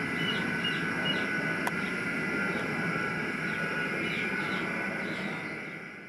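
Homemade gas burner, a torch fed by a small DC blower through a half-inch pipe, running with an oxidizing flame: a steady roar, the sign of more air than the gas can use, the hottest flame setting. It fades out near the end.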